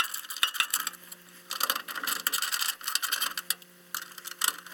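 Ratchet driver with an 8 mm socket clicking rapidly as the furnace inducer motor's mounting bolts are turned out, with small metallic clinks. The clicking is densest in the middle.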